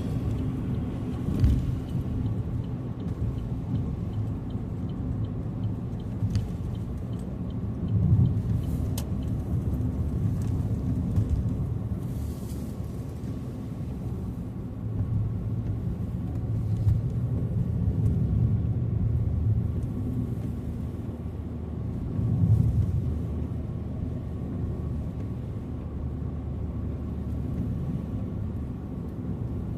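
A car driving on the highway: steady low road and engine rumble that swells and eases, with a few brief louder thumps.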